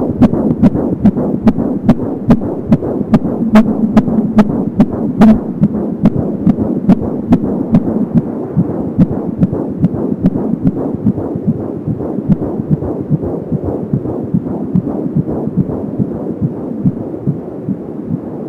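Fetal heartbeat through an Angel Sounds handheld fetal Doppler's speaker: a fast, regular pulsing beat at about 170 beats a minute over a steady whooshing hum.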